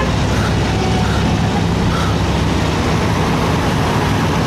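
Sealegs amphibious boat's engine running steadily as the boat drives itself backward off its trailer on its wheels.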